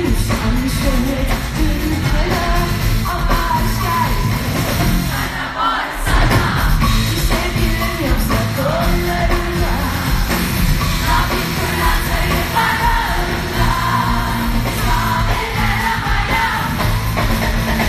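Loud live pop music: a female singer singing into a microphone over an amplified band, picked up on a phone from the audience.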